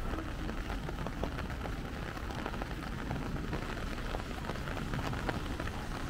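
Steady rain falling, with the clicks of single drops landing close by.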